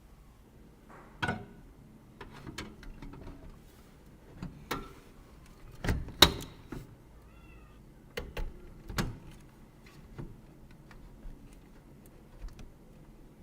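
Scattered clicks and knocks, as of PC parts and tools being handled and set down, the loudest a little after six seconds in. A short, high, wavering chirp comes about seven and a half seconds in.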